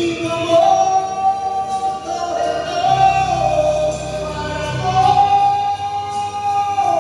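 Slow bolero played on an electronic keyboard: a lead melody of long held notes stepping up and down over accompaniment, with bass notes coming in about three seconds in.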